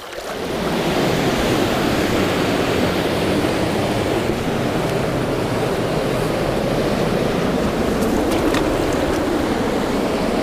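Fast river water rushing over rapids, a steady loud wash of noise that swells in during the first second and then holds even.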